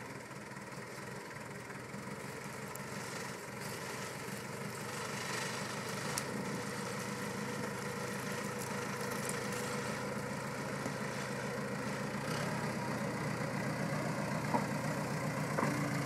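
Case crawler dozer's diesel engine running steadily, growing louder as the dozer moves closer.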